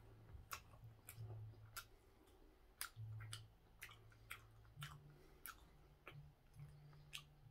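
A person chewing a soft Korean steamed bun (hoppang) with the mouth close to the microphone: a string of irregular, quiet mouth clicks and smacks, about a dozen, over a faint low hum.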